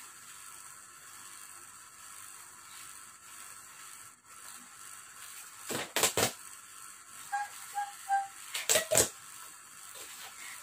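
Brown kraft-paper gift bag rustling and crinkling as hands open it, in two short spells about six and nine seconds in, over a steady hiss.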